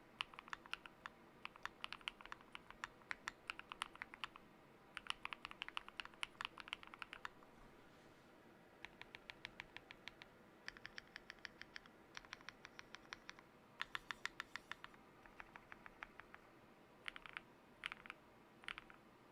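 Typing on a mechanical keyboard with lubed KTT Kang White linear switches and PBT keycaps, in bursts of rapid keystrokes separated by short pauses, thinning to a few separate key presses near the end.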